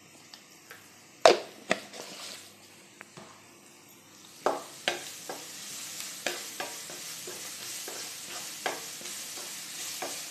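Wooden spatula stirring chopped onions with salt in oil in a nonstick frying pan. There are two sharp knocks about a second in, then from about four seconds in a steady run of scraping strokes, roughly two a second, over a sizzle that grows louder.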